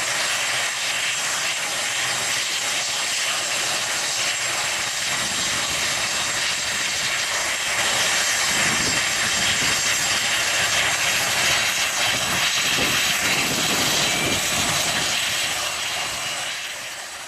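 Boeing 737-800 airliner's CFM56-7B turbofan engines running: a steady jet rush with a thin high whine, growing a little louder partway through and dying away at the end.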